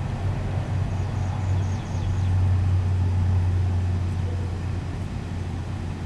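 Low, steady rumble of a vehicle engine, swelling about two seconds in and easing off again after about four seconds.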